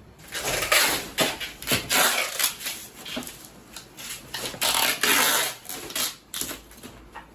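Cardboard cartons being handled and folded during packing: irregular crackling and scraping, louder for a stretch of about half a second around the middle.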